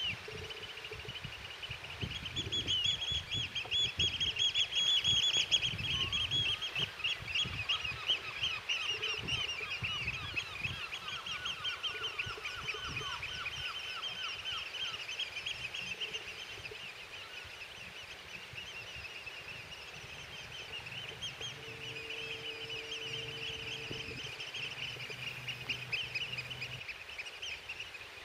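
A large flock of birds calling continuously on the estuary shore, many rapid high-pitched calls overlapping into one chatter. Wind rumbles on the microphone through the first half, and a low steady drone comes in about two-thirds of the way through.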